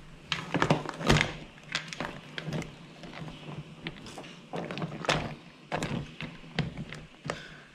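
Irregular knocks and clatters of whole spider crabs' hard shells and legs against the sides of an aluminium stock pot as they are pushed down into hot water to boil.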